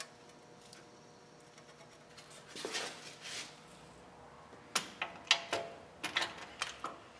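Faint handling noise of hands working a front wheel bearing hub and steering knuckle: a brief scrape about two and a half seconds in, then a run of sharp clicks and taps over the last couple of seconds, over a faint steady hum.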